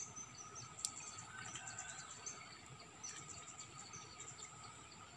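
Faint ambience of insects trilling steadily, with many short high bird chirps and a single sharp click a little under a second in.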